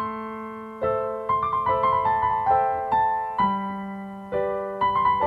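Background music: a gentle piano melody of single struck notes, about two a second, each ringing and fading. It begins abruptly out of silence.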